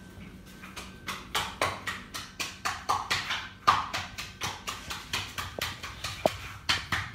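Potato and aloe vera being pounded in a small container with the bottom of a bottle used as a pestle: repeated knocks, about three or four a second.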